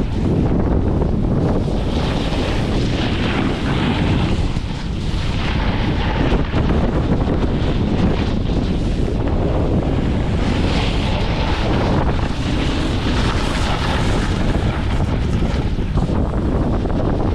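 Wind rushing over the microphone of a camera carried by a rider moving downhill at speed: a loud, steady, low rumbling roar.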